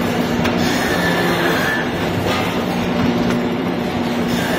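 A brass hinge-making machine running steadily: a loud mechanical rumble with a steady hum, a high whine that comes and goes, and a few sharp knocks.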